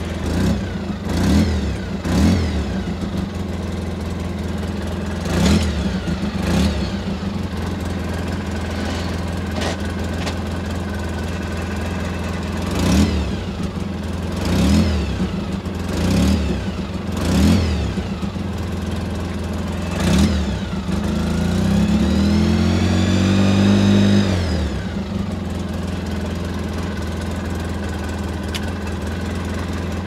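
A 2008 Polaris RZR 800 engine idles steadily, with about nine short throttle blips. About two-thirds of the way through comes a longer rev of about three seconds that climbs in pitch. The machine is in gear in all-wheel drive with its wheels lifted off the ground, to test whether the front wheels are driven.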